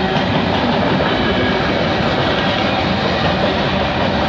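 Freight train cars rolling past at speed: covered hoppers, a boxcar and a tank car giving a steady noise of steel wheels on rails.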